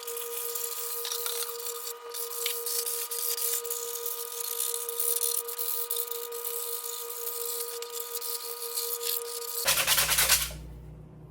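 Sandpaper worked by hand over a 3D-printed plastic helmet: irregular scratching strokes over a steady background hum. Near the end the sound changes abruptly to a lower hum.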